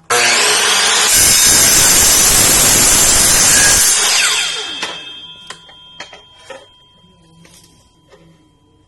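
7-1/4 inch miter saw with a carbide-tipped metal-cutting blade starting up and cutting through 1/2-inch metal tubing for about four seconds. The motor is then switched off and winds down with a falling whine, followed by a few light metallic clinks.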